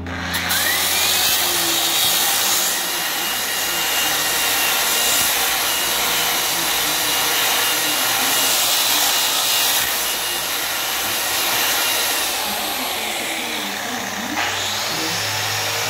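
Electric polisher with a diamond polishing pad grinding along a granite edge. The motor spins up with a rising whine and runs steadily under a broad grinding hiss. Near the end its pitch dips and then climbs again.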